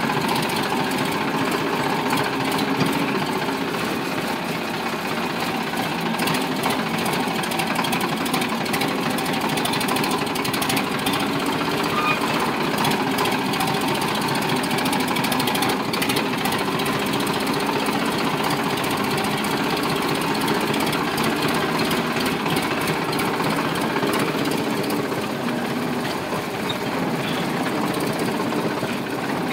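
Sonalika DI 745 tractor's diesel engine running steadily as the tractor drives along, with a fast, even beat.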